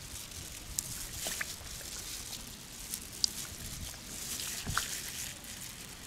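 Loose pearls clicking lightly against one another in a gloved hand, with the soft crinkle of thin plastic gloves and a few scattered small ticks.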